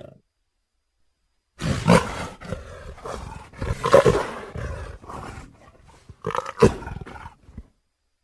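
Synthetic animal roars and growls, blended from leopard and wolf recordings: a run of rough calls that starts after a short silence, loudest about two, four and six and a half seconds in, and stops before the end.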